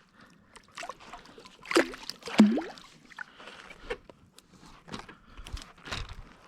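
Irregular clicks, knocks and rustles of a just-landed fish being handled on a plastic kayak, with two short, louder sounds falling in pitch about two seconds in.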